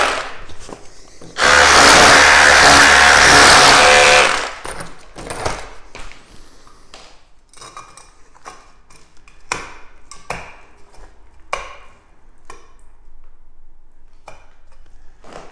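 Bosch GBH18V-26 cordless SDS Plus rotary hammer with a scutch chisel chipping into brick: it cuts off just at the start, then runs again in one burst of about three seconds. After that, a string of scattered light knocks and clinks as the metal back box is tried in the recess.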